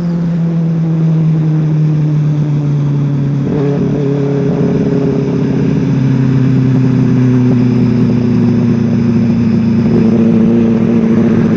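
Benelli TNT 600i's inline-four engine, breathing through an IXIL aftermarket exhaust, pulling under way at speed. Its note eases down over the first few seconds, then climbs slowly again toward the end.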